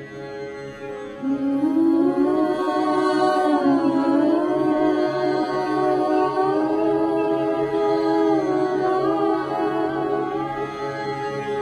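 Music: a wordless voice singing long held notes that slide from pitch to pitch, over a low steady note.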